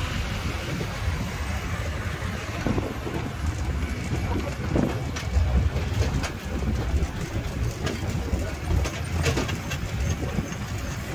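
Road tourist train moving along a street, heard from inside one of its open carriages: a steady low rumble of the engine and tyres, with a few short knocks and rattles from the carriages.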